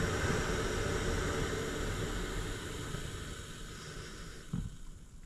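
Jetboil canister stove's gas burner hissing steadily under a steaming pot, then fading away about four seconds in as the flame is turned down, with a soft knock as it drops.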